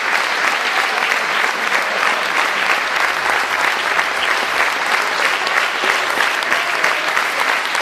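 Audience applauding: dense, steady clapping from a large crowd in a theatre hall.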